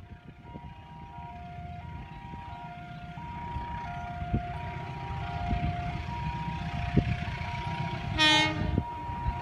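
A train horn sounds once, briefly, about eight seconds in, over a low rumble that grows louder as the train approaches. A simple background-music melody plays throughout.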